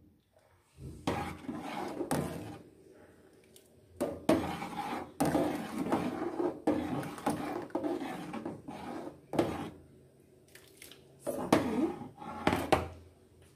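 A metal ladle stirring thick soup in a stainless steel pot, scraping and knocking against the pot in uneven strokes, while a flour mixture is stirred in to thicken it.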